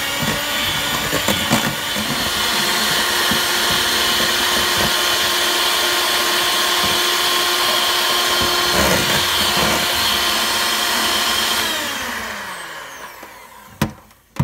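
Electric hand mixer running at a steady high whine, its beaters churning butter, brown sugar and eggs in a stainless steel bowl. Near the end the motor winds down with falling pitch and stops, followed by a sharp click.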